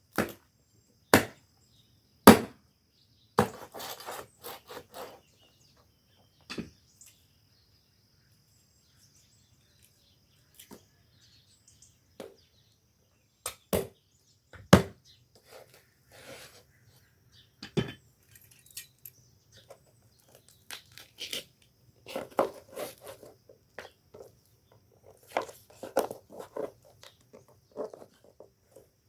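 Intermittent sharp knocks and clicks with short bursts of rustling and clatter, the handling noises of food preparation. A quiet gap falls in the middle, and a faint steady high tone runs underneath.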